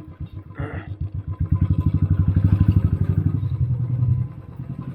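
Scooter's small engine running at idle with an even putter, getting louder for a couple of seconds mid-way and then dropping away near the end. A short rattle sounds about half a second in.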